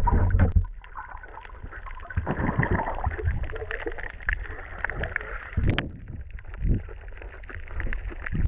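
Water sloshing and rushing around a submerged camera, heard muffled underwater, with surges near the start, about two and a half seconds in and about six seconds in, and a few sharp knocks.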